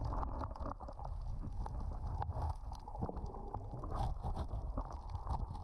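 Underwater ambience: a boat engine's steady low drone carrying through the water, with scattered clicks and crackles over it.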